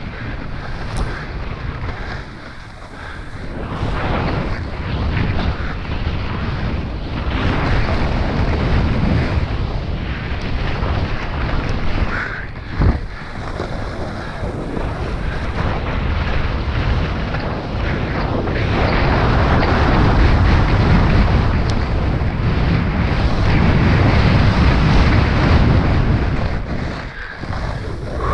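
Wind rushing over the camera microphone mixed with a snowboard sliding and carving through powder snow on a fast descent, the rush rising and falling. A single sharp knock about 13 seconds in.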